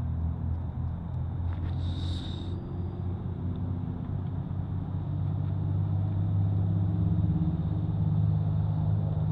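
A motor vehicle's engine running close by: a steady low rumble that grows louder over the seconds. A brief hiss comes about two seconds in.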